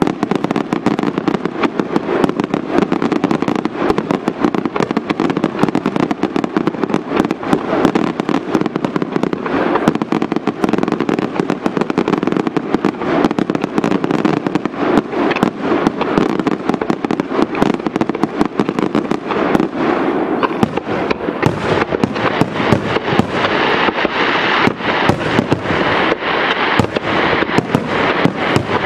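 A fireworks display in full barrage: a rapid, unbroken run of bangs and crackles from aerial shells bursting and rising. About two-thirds of the way in, the reports become more distinct and spaced.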